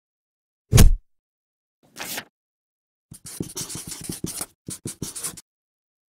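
Logo-intro sound effects: a heavy thud just under a second in, a short whoosh about a second later, then about two seconds of rapid scratchy scribbling strokes, like a marker writing.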